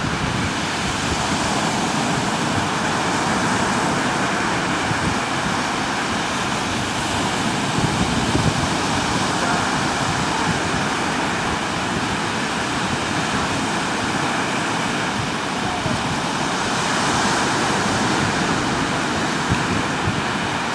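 Ocean surf washing steadily, with wind rumbling on the microphone.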